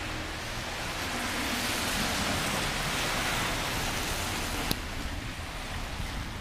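Steady rushing noise, like wind or flowing water, swelling a little in the middle, with one sharp click near the end.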